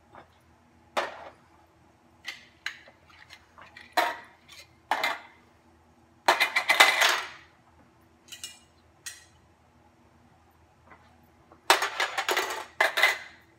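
Metal canning lids and screw bands being set down on an aluminium sheet pan among glass mason jars: a series of separate sharp clinks and taps, a longer metallic clatter a little past the middle, and a quick run of clatters near the end.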